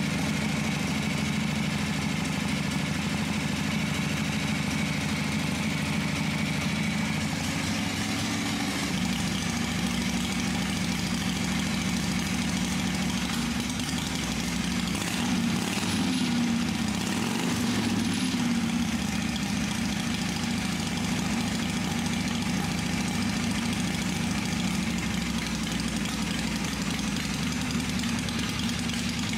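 1981 Harley-Davidson Shovelhead V-twin running at a steady idle, picking up slightly about halfway through. The engine is running quiet, with no valve-train tick, after its worn rocker arm bushings were replaced.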